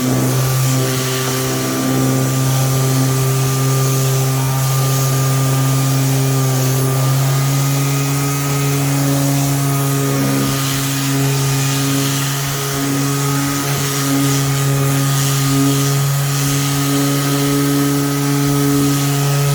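Bauer 20V cordless 5-inch random orbital sander (model 1817C-B) running steadily on wood, a constant motor hum with a hiss of sanding.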